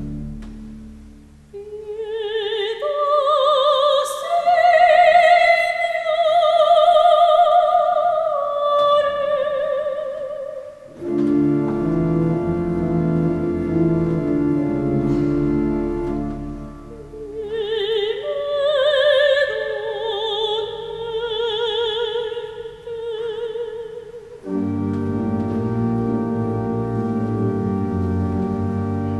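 Soprano voice singing two sustained phrases with wide vibrato over a pipe organ, the organ holding steady chords alone between the phrases and again near the end.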